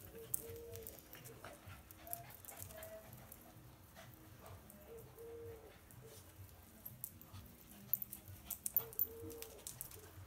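An animal's soft pitched call, heard three times about four seconds apart, each a short note followed by a longer one that rises and falls, over faint scattered ticking.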